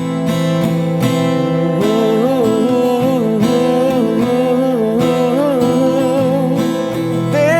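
Music with acoustic guitar over sustained tones, a wavering, gliding melody line coming in about two seconds in.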